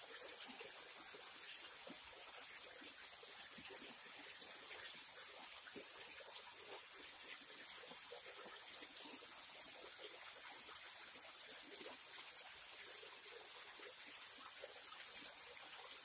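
Small waterfall: thin streams of water falling over a rock ledge and splashing into a shallow creek pool, a steady, even splashing that does not change.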